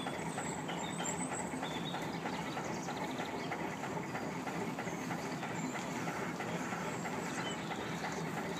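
Diesel-powered paddlewheel narrowboat under way: the engine running and the stern paddlewheel turning through the water give a steady, rapid rhythmic clatter.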